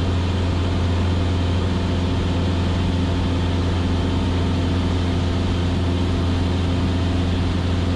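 Cessna 172S's four-cylinder Lycoming engine and propeller droning steadily in flight, a constant low hum with an even noise over it.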